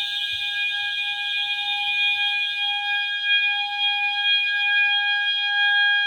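Two fire alarm horn strobes, a System Sensor MASS and an FCI, sounding together as one continuous, very loud electronic horn tone with no breaks. The System Sensor horn is the louder and nearly drowns out the FCI.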